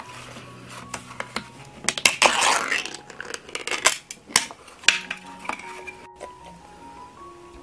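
Pull-tab tuna can being opened: a sharp click, then a short rasping tear as the metal lid peels back round the rim about two seconds in, followed by a few light metallic clicks and clinks as the lid and can are handled.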